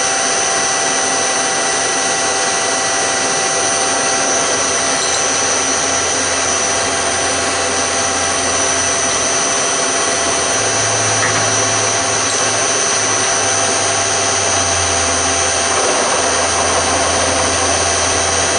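Milling machine spindle running with a steady high whine as a 5 mm end mill cuts a groove in an aluminium bracket. About ten seconds in, a lower hum joins.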